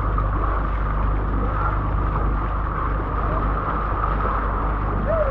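A boat under way with its engine running at a steady hum, over the constant rush of the bow wave through the water.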